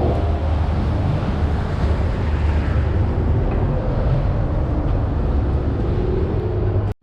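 A vehicle engine running steadily with a low rumble. It cuts off abruptly just before the end.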